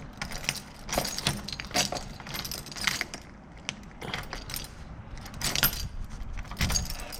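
Keys and small metal lock tools being handled, with irregular metallic clinks and jangles throughout and a dull bump near the end.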